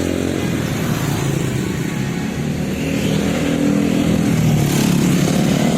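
Tour bus engine running and accelerating amid road noise, growing louder in the second half. No musical horn sounds here.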